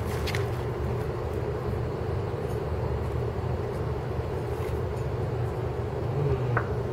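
Steady low outdoor rumble of urban background noise, with a few faint clicks early on and a short higher sound near the end.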